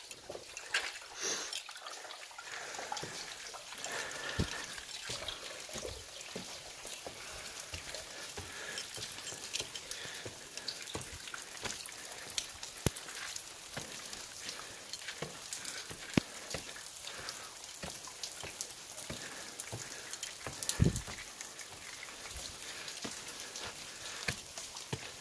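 Water dripping and pattering in wet bush and at a cave mouth, many irregular small drips, with footsteps on wooden stairs and a heavier thump about 21 seconds in.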